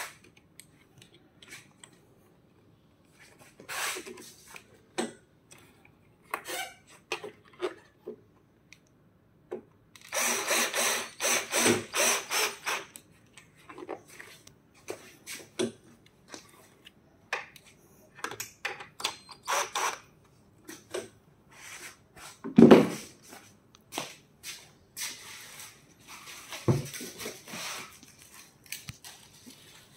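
Cordless drill/driver running in short runs, driving screws into a treadmill's handlebar frame, with a denser stretch of drilling about ten seconds in. Between runs, parts clatter and rub as they are handled, and one heavy thump comes about two-thirds of the way through.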